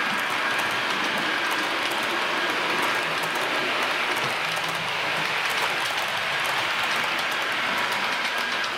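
HO-scale model train running along the track: a steady whirring and rolling noise, with many small clicks as the wheels pass over the rail joints.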